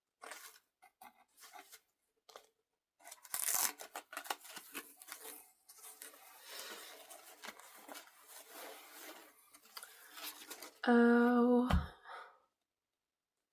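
Paper wrapping rustling and crinkling as gift items are unwrapped and handled by hand, with a few scattered clicks at first. Near the end, a short wordless vocal sound from a woman.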